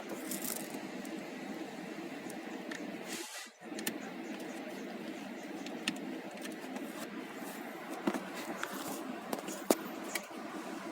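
Steady low background hum with a few scattered sharp light clicks, like small metal or plastic parts being handled; the hum drops out for a moment about three and a half seconds in.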